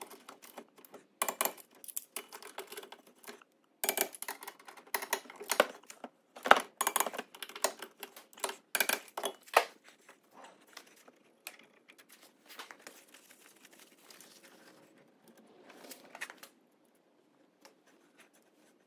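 A hand ratchet clicking in quick bursts as bolts on a new front wheel hub bearing are run in, then fainter clicks and metal handling after about ten seconds.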